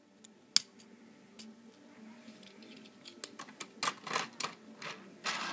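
Plastic Lego pieces clicking and knocking as they are handled: one sharp click about half a second in, then a few softer clicks and rustles near the end.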